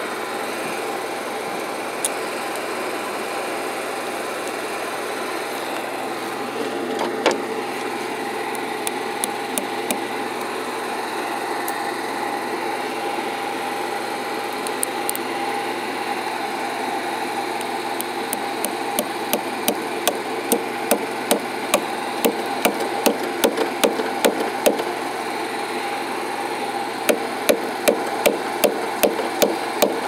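Hammer striking a cable clip's nail into a wooden utility pole, with a few single knocks and then, in the second half, two runs of quick, even blows about two a second. Under it the bucket truck's engine runs steadily.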